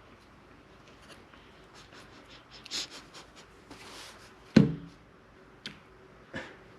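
Light clicks and rustles of hands working kinetic sand and plastic toy molds, with one sharper knock about four and a half seconds in, the kind made when a brick mold is tapped to release the sand brick.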